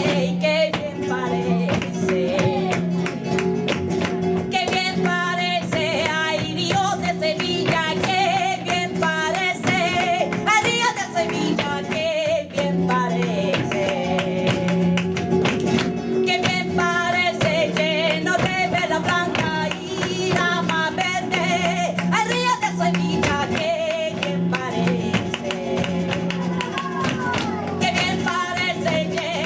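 Live sevillanas: a woman sings with flamenco guitar accompaniment, over sharp percussive beats.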